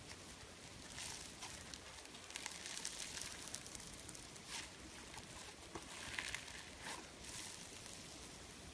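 Fluffy slime being stretched and pulled, with fine crackling and soft popping as its air pockets tear open, coming and going in irregular clusters.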